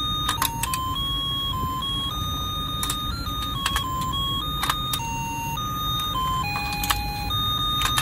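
Battery-powered toy bird-catching game playing a simple electronic beeping tune, one note at a time, over the steady whir of its turntable motor, with scattered sharp plastic clicks from the turning pieces.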